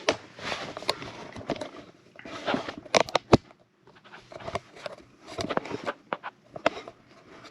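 Hands handling objects up close: a string of sharp clicks and knocks, a cluster of them about three seconds in, with rustling in between.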